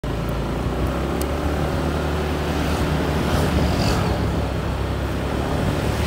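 Street traffic ambience: a steady low rumble of motorbikes and cars running on the road.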